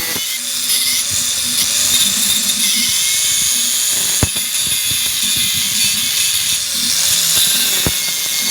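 Power grinder working on steel gear teeth: a steady, high-pitched grinding hiss over a motor hum, with two sharp clicks, one about halfway through and one near the end.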